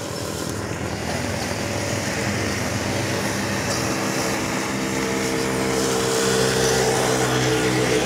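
A vehicle engine running steadily at one speed, getting louder over the last few seconds.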